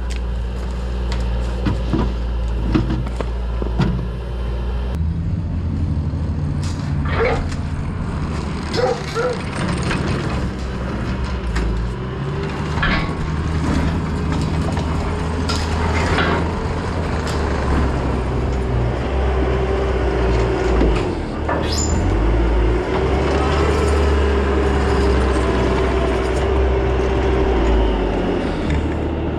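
Engine of the fork-equipped machine running under load, with repeated metal clanks and knocks as parts are pulled from the excavator's shipping crate, and a whine that wavers up and down in the second half.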